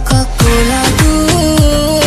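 Background music with a steady beat: deep drum hits that drop in pitch, over a held melody.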